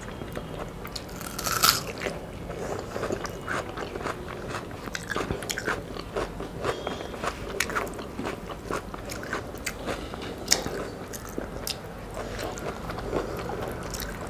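Close-miked eating by hand: chewing and crunching with many sharp mouth clicks, and fingers mixing rice on a plate. The two loudest clicks come about a second and a half in and about ten seconds in.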